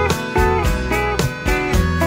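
Background music from a country song's instrumental break: guitar over a steady drum beat, with no singing.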